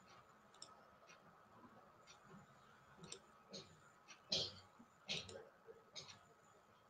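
Computer mouse clicking irregularly, about seven faint clicks, louder in the second half, as lines are placed in a drawing program.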